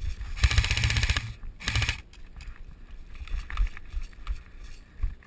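Airsoft gun firing full-auto in two bursts of rapid, even shots: a longer burst of about a second, then a short one.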